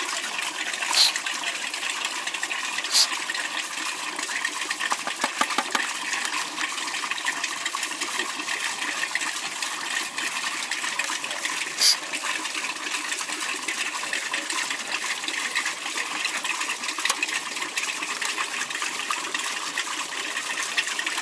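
Water splashing and running steadily inside an aerobic septic treatment station, where the compressor-driven air-lift draws water up, aerates it and sprays it over the bio-media. A few brief sharp clicks sound about a second in, about three seconds in and near twelve seconds.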